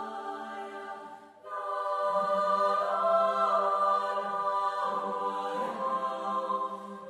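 Background music of slow, sustained chords that fade briefly about a second in, then swell back louder.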